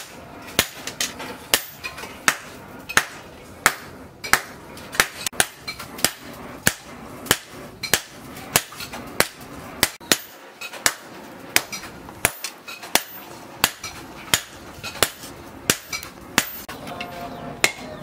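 Hand hammer forging a red-hot machete blade of disc-plough steel on a small steel anvil block: steady, sharp metal-on-metal blows, about one and a half a second.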